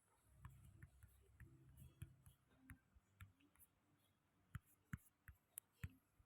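Near silence: room tone with faint, scattered clicks, a few sharper ones near the end.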